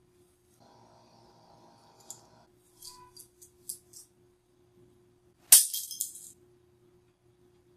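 A handful of plastic guitar picks falling onto a tile floor: one sharp clack about five and a half seconds in, then a short bright rattle as they bounce and scatter. Before it come a few small clicks as the picks are handled in the hand.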